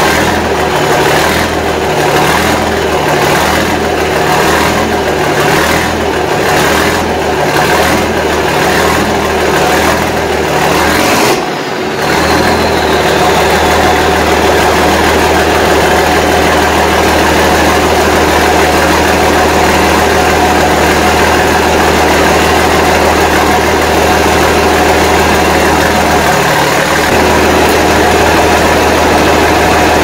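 John Deere 4440's turbocharged six-cylinder diesel running at idle. For the first ten seconds or so it pulses in a regular rhythm a little under twice a second; after a short dip about eleven seconds in it runs steady, with a faint high whine that fades away.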